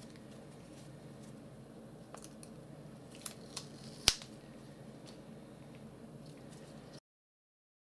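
Faint handling of a strip of copy paper by gloved hands, with a few light clicks and one sharp click about four seconds in. The sound cuts off suddenly near the end.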